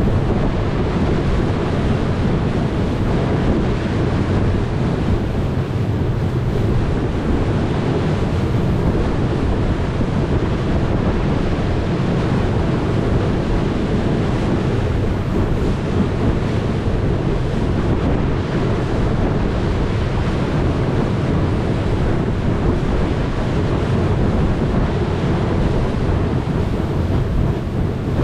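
Steady wind buffeting the microphone over the rush of water from a boat under way.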